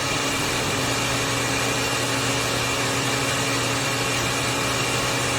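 Countertop blender motor running steadily at one speed, a loud even whir with a steady hum.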